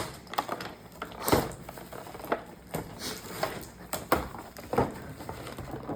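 Irregular clicks, taps and short rustles of a toy box's cardboard and plastic packaging being handled and opened.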